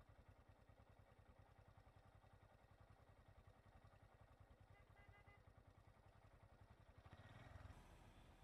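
Faint, even low engine idle with a fast pulse. About seven seconds in, a small goods pickup truck passes close by, its engine and tyre noise swelling briefly and then falling away.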